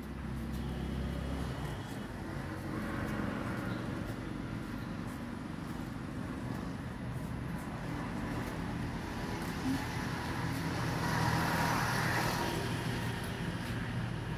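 Road traffic: a motor vehicle's engine running steadily, swelling louder for a few seconds toward the end.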